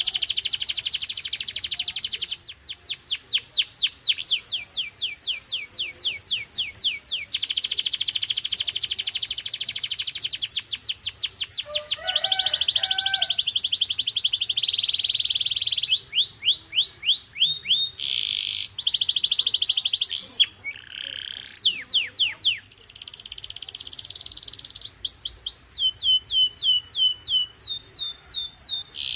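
Domestic canary singing a long continuous song: fast buzzing trills alternate with slower runs of repeated down-sweeping notes, changing phrase every few seconds, with a short dip in the song a little past the middle.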